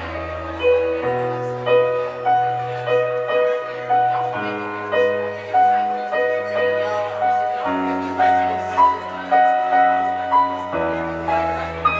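Keyboard played live in a slow ballad: repeated chords over low bass notes that change about every three seconds.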